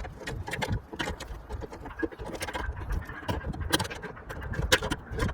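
Irregular clicks and light knocks of tools and parts being handled, over a low steady rumble.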